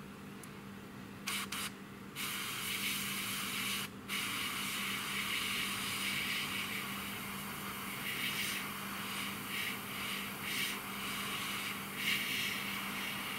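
Airbrush spraying paint: two short puffs of air about a second in, then a steady hiss from about two seconds in that breaks off briefly near four seconds and swells and eases as the trigger is worked.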